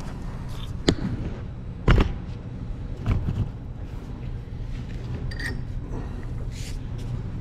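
Handling noise at a workbench as tools and parts are moved about: a few short knocks, the loudest about two seconds in, over a steady low hum.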